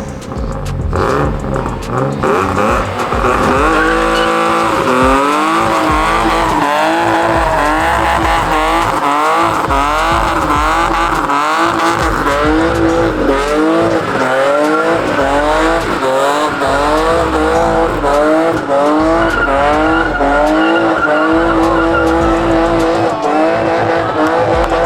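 A car's engine revving hard, its pitch rising and dropping over and over about every two-thirds of a second, with tyres squealing as the car spins in a burnout or donuts.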